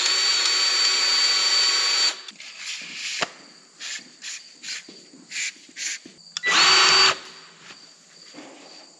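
Cordless grease gun's motor running steadily with a high whine for about two seconds, then stopping. Clicks and knocks follow as the gun and its hose coupler are handled, with a second short burst of the motor past the middle.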